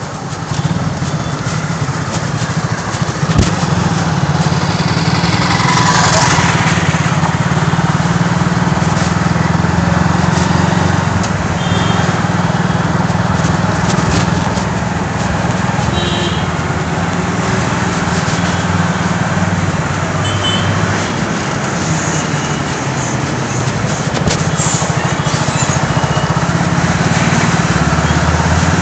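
Motorcycle engine running, heard up close from the rider's seat, under a steady road noise. The engine grows louder over the first few seconds as the bike picks up from a slow crawl.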